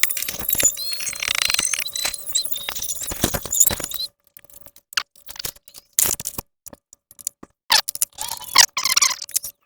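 Flux-core wire-feed welder crackling with a dense run of clicks as a weld is laid for about four seconds, then stopping and starting in short bursts.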